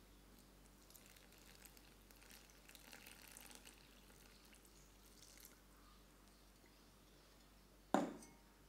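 Hot water poured in a thin stream from a glass measuring jug into thick chocolate cake batter, a faint trickle lasting a few seconds. Near the end a single sharp knock, the loudest sound.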